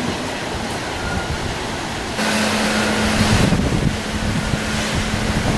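Tropical cyclone wind rushing and buffeting the microphone, stepping up louder about two seconds in, with a faint steady low hum underneath.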